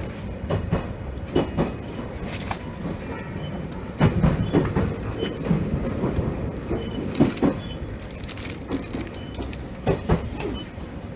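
Electric train running into its terminus, wheels clicking over rail joints and pointwork over a steady rumble from the running gear.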